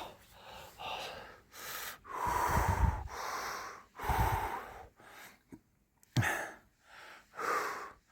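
A person breathing heavily in a run of gasping breaths, each a short rush of air, about one a second, with two longer, louder breaths around two and four seconds in.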